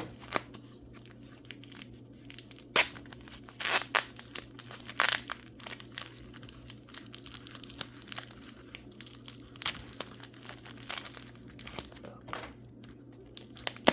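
Wrapping material crinkling and tearing in irregular crackles as mineral specimens are unwrapped by hand, with the sharpest bursts about three, four, five and ten seconds in.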